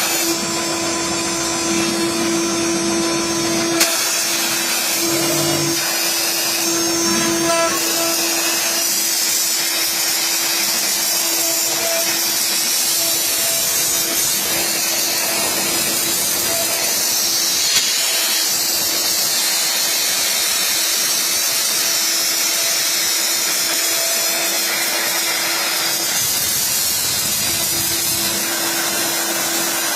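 CNC router spindle cutting acrylic: a steady high-speed spindle hum with a dense hiss of cutting, and two brief sharp ticks, about four seconds in and again around eighteen seconds.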